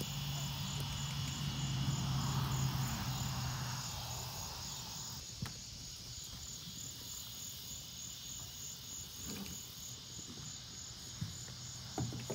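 A steady chorus of insects trilling, with a low hum that is strongest for the first few seconds and then fades. A few faint knocks come about five seconds in and near the end.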